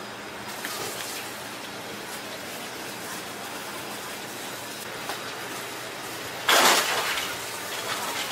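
Steady hiss of kitchen background noise, with one short, loud burst of noise about six and a half seconds in.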